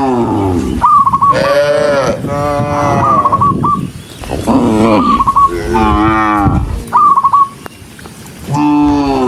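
Several cattle mooing one after another, the long calls often overlapping and bending in pitch. Short, quick high trilled notes come in between them about four times.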